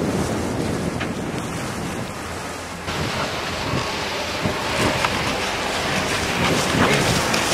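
Wind buffeting the microphone over water washing along a moving sailboat's hull. About three seconds in the sound changes abruptly to a brighter, steady hiss of wind and water.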